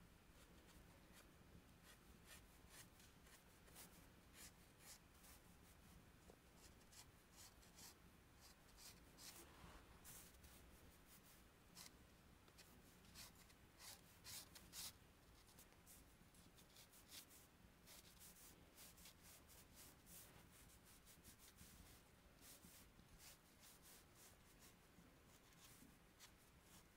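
Faint scratching of red chalk on textured paper: many short, irregular drawing strokes, with a busier stretch in the middle.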